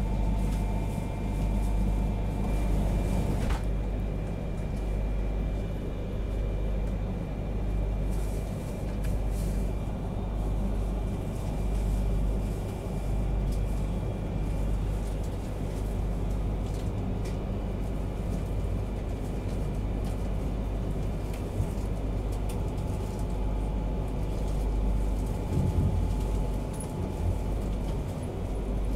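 Steady low rumble inside the passenger cabin of an E3-series Shinkansen carriage, rising and falling gently in loudness.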